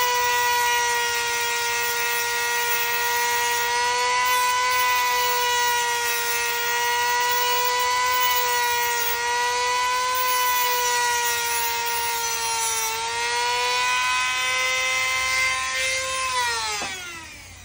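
Dremel rotary tool running at high speed with a steady whine as it cuts into a metal rod. Near the end it is switched off and the whine falls in pitch as the motor spins down.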